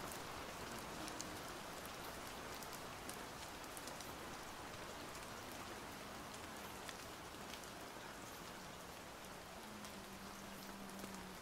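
Light rain: a soft, steady hiss with many small scattered ticks of drops. A faint low steady tone comes in over the last few seconds.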